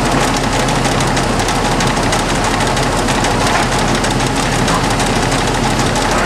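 LeBlond 1610 Servo Shift heavy-duty engine lathe running under its 20 HP motor drive, the headstock gearing and 15-inch four-jaw chuck spinning at speed. It is a steady, loud mechanical running noise with a constant low hum underneath.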